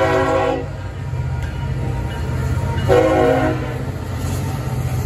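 Lead locomotive CSX 982's air horn sounding a horn salute: a blast that ends about half a second in, then a second short blast about three seconds in. The low rumble of the passing diesel train runs beneath.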